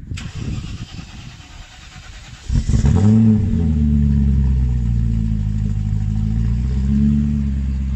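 Supercharged BMW M62 4.4-litre V8 starting about two and a half seconds in. The revs flare and dip, then it settles into a steady fast idle from cold, with a small rise in revs near the end.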